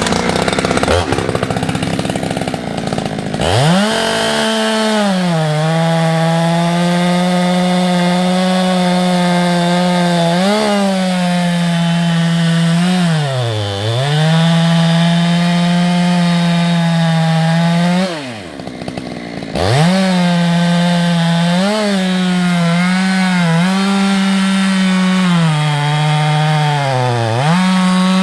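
Husqvarna 365 X-Torq two-stroke chainsaw bucking a large beech log. After a loud rush of noise, the engine comes up to full throttle about 3.5 seconds in and runs steady and high, its pitch sagging under load and recovering several times. Near the middle the throttle eases off briefly before it revs back up into the cut.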